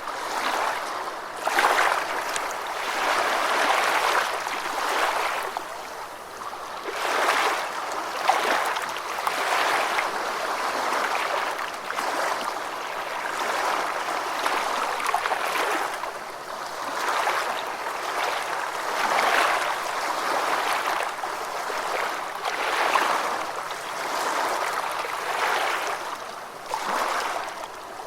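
Gentle ocean waves washing in and out: a steady rush of water that swells and eases every few seconds, with little deep rumble.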